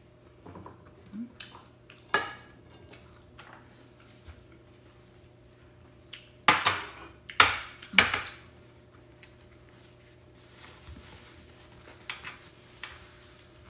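Ceramic dishes clinking against a glass-topped table and each other as plates and bowls are moved about, in a few separate sharp clinks; the loudest cluster, three or four knocks close together, comes about six to eight seconds in.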